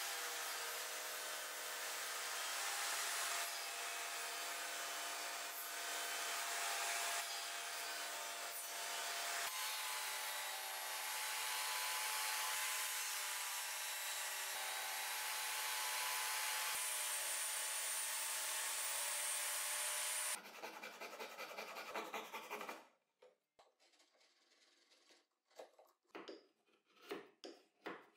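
Jobsite table saw with a dado stack cutting rebates in plywood: a steady cutting run with a faint motor whine, which winds down and stops after about twenty seconds. After a short pause, a chisel makes a few short paring strokes on the plywood near the end.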